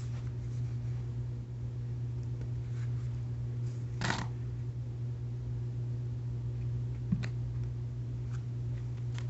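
Paper rubber band gun being handled, giving faint rustles and light clicks over a steady low hum, with a brief rustle about four seconds in and one sharper click about seven seconds in.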